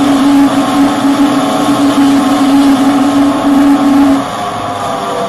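Ultron electric scooter's hub motors whining at one steady pitch during a full-throttle race run, over heavy wind rush on the microphone. The whine cuts off about four seconds in and the overall noise drops.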